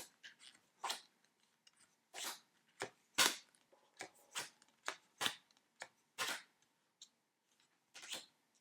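Large glossy tarot cards being flipped and slid one at a time: about a dozen short swishes and soft taps at irregular intervals.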